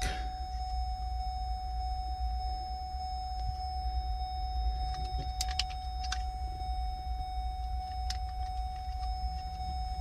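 Light plastic clicks and taps from a car's AUX/USB port module being handled with a screwdriver, a few of them between about five and eight seconds in. Under them run a steady low rumble and a faint constant whine.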